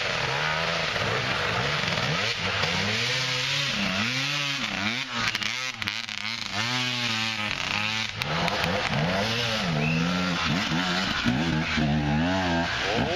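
Off-road dirt bike engines revving in repeated bursts on a loose dirt climb. The pitch rises and falls with each stab of the throttle.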